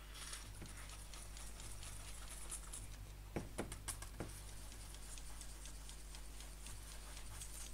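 Light taps and clicks of a thin metal BGA reballing stencil being handled at a microsoldering bench, with a few sharper clicks in a cluster about halfway through, over a steady electrical hum and hiss.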